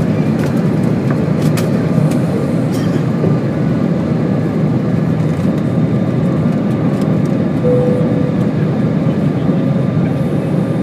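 Airbus A320 jet engines at takeoff thrust, a steady roar heard from inside the cabin over the wing as the airliner lifts off and climbs. A few knocks from the undercarriage come in the first few seconds.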